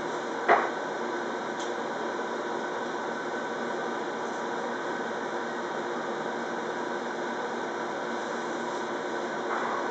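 Steady mechanical hum with faint constant tones, with one sharp click about half a second in.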